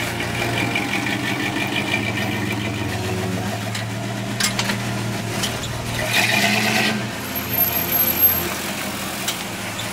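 A car engine idling steadily, with a few short clicks over it.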